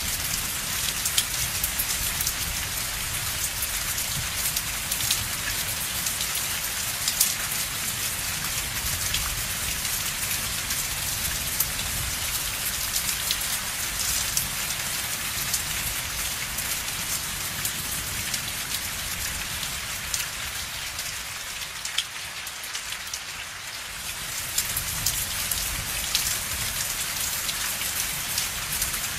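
Steady rain falling on a surface, with scattered sharp drop taps standing out. The rain goes briefly softer about three-quarters of the way through, then picks back up.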